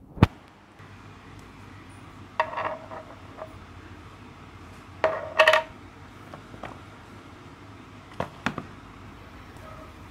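Shoes and a metal shoe-polish tin being handled and set down on a hard floor: a sharp knock at the start, two short clattering bursts with a brief metallic ring a few seconds apart, and two small clicks near the end.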